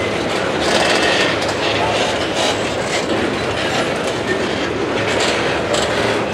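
Freight cars of a slow CSX mixed freight rolling past close by: steel wheels rumbling steadily on the rail, with repeated clacks as the wheels cross the rail joints.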